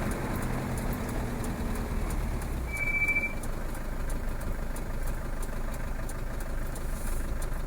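Land Rover Defender 110's engine running steadily, heard from inside the cab as a low rumble. A brief high tone sounds about three seconds in.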